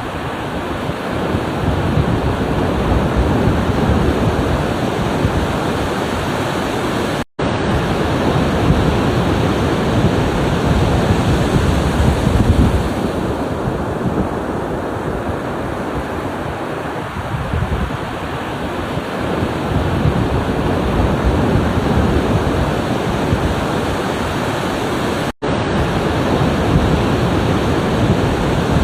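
Ocean waves breaking and washing ashore, a continuous rush that swells and eases. Twice the sound cuts out for an instant.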